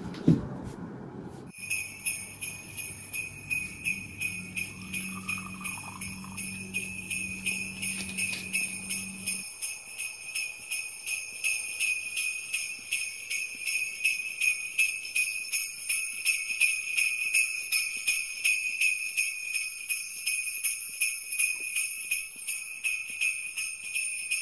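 Sleigh bells jingling in a steady rhythm, about two shakes a second, after a short knock at the start.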